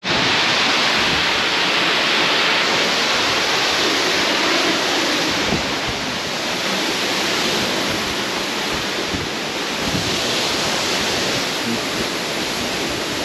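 Waterfall pouring down close by: a loud, steady rush of falling water.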